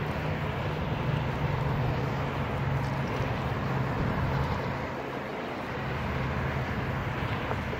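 Steady rushing noise of a Onewheel Pint electric board ridden at speed on pavement: wind on the microphone and tyre noise, with a low hum underneath that dips briefly about five seconds in.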